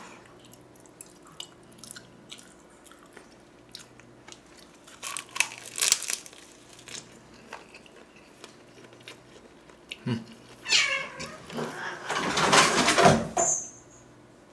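Man chewing a mouthful of seaweed-wrapped rice ball, with soft mouth clicks. Near the end a pet cat meows loudly, a short call followed by a longer one.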